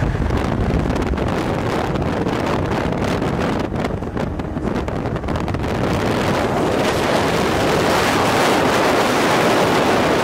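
Wind rushing over the microphone and tyre and road roar from a car travelling at highway speed, a steady rushing noise that grows louder in the second half.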